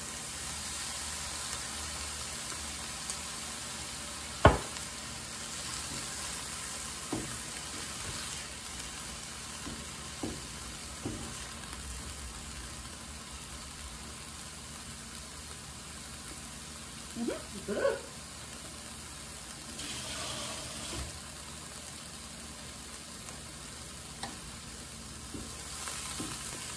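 Cauliflower fried rice and vegetables sizzling steadily in a frying pan while being stirred with a silicone spatula. One sharp knock comes about four and a half seconds in, with a few lighter taps and scrapes later.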